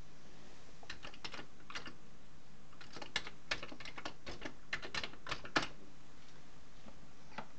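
Keys clacking on a Commodore 64 keyboard as commands are typed: a short run of keystrokes about a second in, a longer run of about a dozen between three and five and a half seconds, and one last key near the end.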